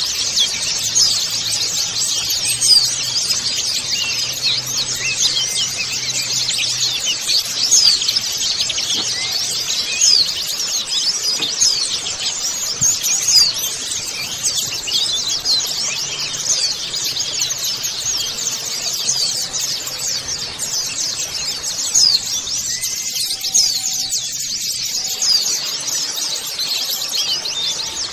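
A colony of white-eyes (pleci) chirping and twittering together, many short high calls overlapping without pause.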